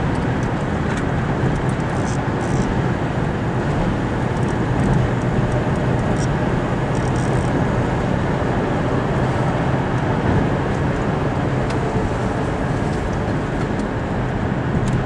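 Steady road and engine noise heard from inside a car driving at highway speed, with no breaks or changes.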